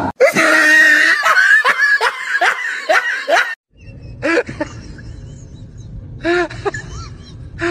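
Rapid laughing, short pitched bursts a few times a second for about three and a half seconds, then it cuts off. After that a low steady hum with a few short rising-and-falling calls.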